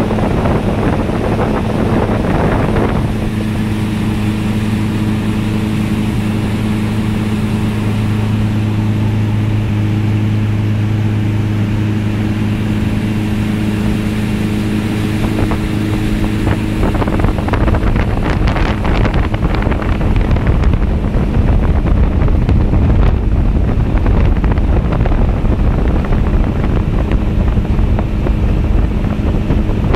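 Motorboat underway at speed: its engine runs with a steady hum under rushing water and wind buffeting the microphone. The wind rumble grows stronger a little past halfway.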